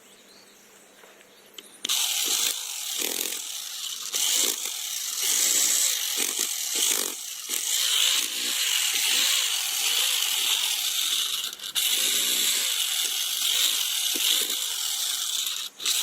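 A saw cutting, starting abruptly about two seconds in and running on with an even rhythm of strokes.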